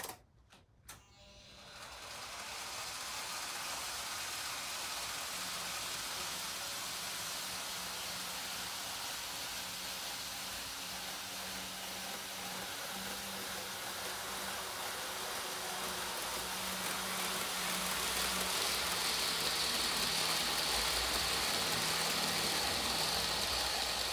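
N-gauge model trains running on the layout's track: a steady whirr of motors and wheels on rail with a low hum, building in over the first two seconds after a few sharp clicks, and growing louder with a stronger high hiss in the second half as a train comes round the curve near the camera.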